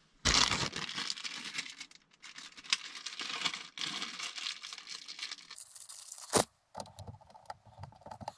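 Rustling and crinkling handling noise with scattered small clicks as hands fit sensor-wire plugs into an energy monitor's main unit, with one sharp click about six and a half seconds in.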